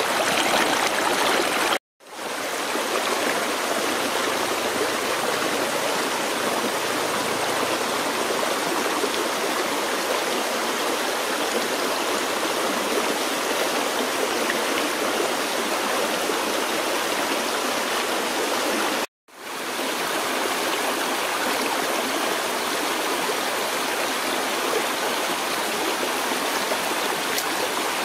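Shallow stream rushing over rocks, a steady dense wash of water. It drops out for an instant twice, about two seconds in and about nineteen seconds in.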